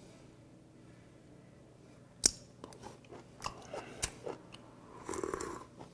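Wet chewing, smacking and biting sounds of a man eating raw stone sea squirt, starting about two seconds in with one loud sharp click and followed by a string of softer clicks.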